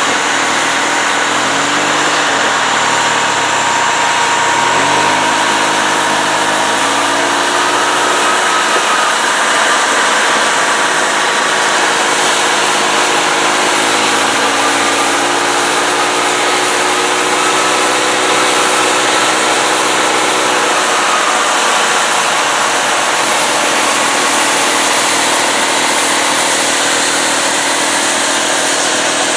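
Big John Deere combines harvesting soybeans: diesel engines running under load over the steady rushing noise of the threshing machinery. Several engine tones slowly rise and fall and overlap.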